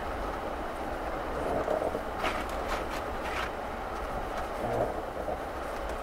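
Mercury Grand Marquis driving on a snow-covered highway, heard from inside the cabin: a steady low rumble of tyres and road. A few short hisses come about two to three seconds in.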